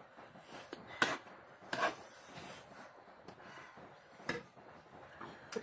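Eating sounds: spoons and forks clicking and scraping on plates as people eat noodles, a few short sharp clicks over a faint room hiss.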